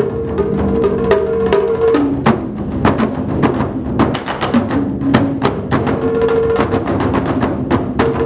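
An ensemble of Chinese barrel drums beaten with sticks by five drummers, in a fast, dense rhythm of sharp strikes several times a second.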